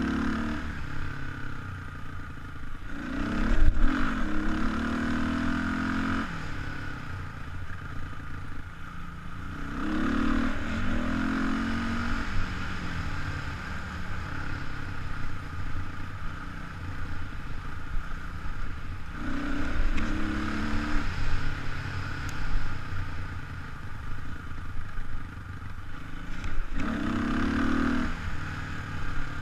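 Kawasaki KLX300 dirt bike's single-cylinder four-stroke engine running on a dirt trail, revving up as the throttle opens four times and easing back in between. A loud knock about three and a half seconds in.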